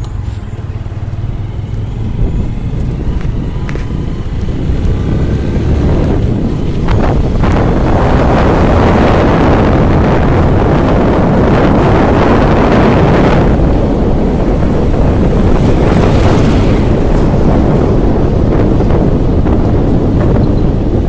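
Wind rushing over the microphone of a moving vehicle, with a low engine rumble underneath. It grows louder about seven seconds in.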